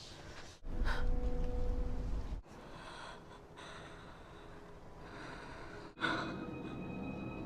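A person gasping, with sharp intakes of breath, in film scenes cut back to back. The background changes abruptly at each cut, about a second in, near the middle and about six seconds in.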